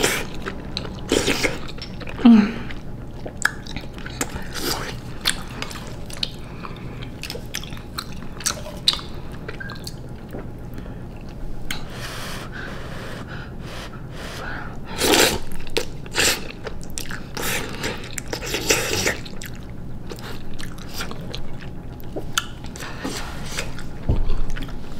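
A person eating spicy instant noodles close to the microphone: slurping noodles and chewing with wet mouth noises. There are louder stretches of slurping near the start and about 15 and 19 seconds in.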